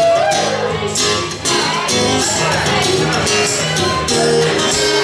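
Live acoustic band music: a strummed acoustic guitar, with a tambourine shaking in time and a woman's singing voice.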